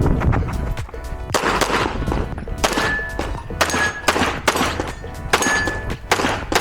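Pistol shots fired at irregular intervals during a USPSA practical-shooting stage run, several sharp cracks with echo, over background music.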